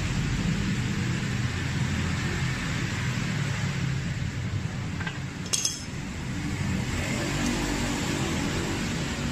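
Steady hiss with a low hum under it, and a light metallic clink about five and a half seconds in.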